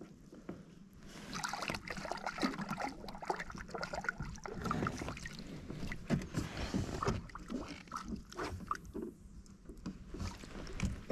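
Irregular splashing in water with scattered knocks and clicks.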